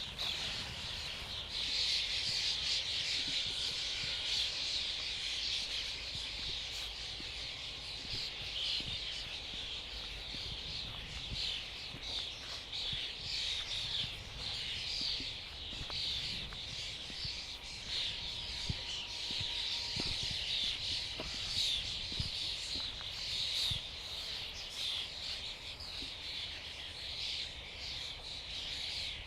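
A large flock of European starlings chattering all at once: a dense, unbroken mass of squeaks, whistles and clicks with no pauses.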